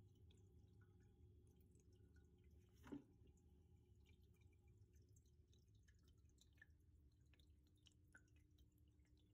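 Near silence: a faint low hum with scattered faint drip-like ticks, and one short click about three seconds in.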